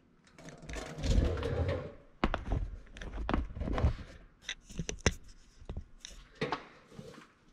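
Handling and movement noise as a trim tab actuator cylinder is picked up and carried, with rustling and several sharp clicks and light knocks, the clearest ones about two seconds in and between four and five seconds in.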